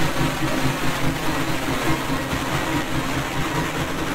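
Soundtrack of an electronic audiovisual artwork playing over loudspeakers in a gallery: a dense, steady droning texture with a low hum and a hiss above it.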